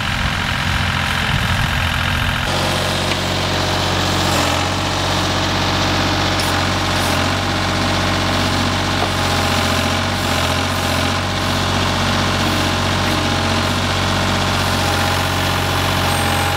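Engine of a Vermeer compact utility machine running at a steady speed while its backhoe attachment digs. From about two seconds in it is a steady low drone.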